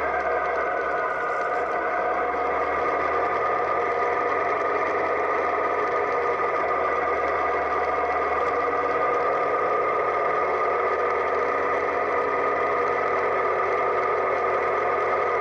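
Motorcycle engine running steadily, its pitch holding the same throughout.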